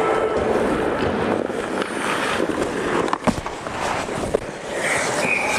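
Hockey skates scraping and carving on the ice, with sticks and puck clattering around the net. A sharp crack about three seconds in as a shot comes on goal and is saved. A referee's whistle sounds near the end.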